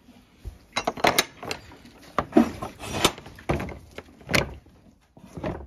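A wooden stable gate and its steel pin latch being worked by hand, giving a series of irregular sharp knocks and rattles.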